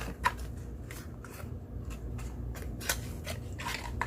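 Handling of cosmetic product packaging: a scattering of light clicks, taps and rustles as boxes and bottles are picked up and set down, over a steady low hum.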